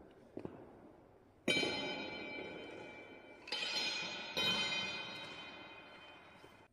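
A metal bell struck three times, each strike ringing with many clear high tones that fade slowly. The sound cuts off suddenly near the end.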